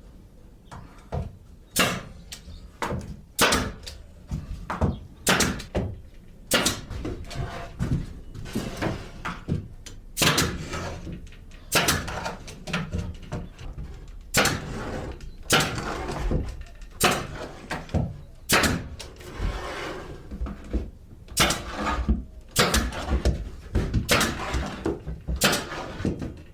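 Old pneumatic brad nailer firing 1¼-inch brad nails again and again, sharp shots roughly once a second with some in quick pairs, with handling knocks in between. It is firing properly rather than misfiring.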